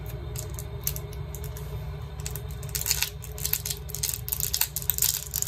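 Scattered small clicks and crackles of a smartphone battery's adhesive strip being pulled free by its pull tab, busier about three seconds in and near the end, over a steady low hum.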